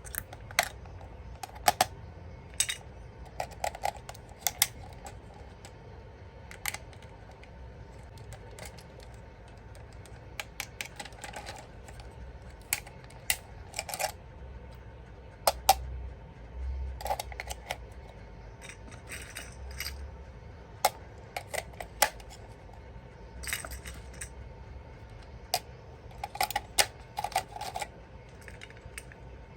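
Irregular sharp clicks and taps of hard plastic toy parts and packaging being handled, with a few short rustles.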